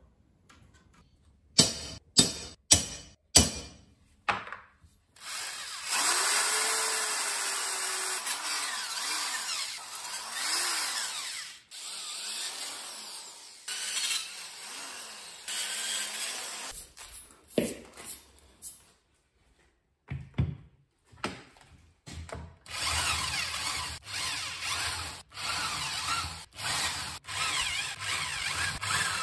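Corded electric drill boring through a flat steel bar of a chair frame in one long steady run, then driving screws into a wooden skateboard deck in short repeated bursts. There are a few sharp knocks near the start and again in the middle.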